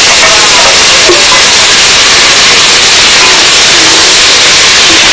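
Loud, steady hissing from a cooking pot giving off thick steam.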